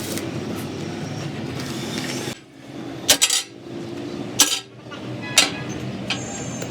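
Steel striking steel: about four sharp, ringing metallic clanks during rear-axle spindle work, after a steady mechanical noise that cuts off about two seconds in.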